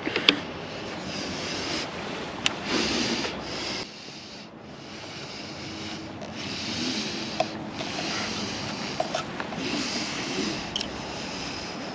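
Handling noise: rubbing and scraping with a few sharp clicks scattered through it.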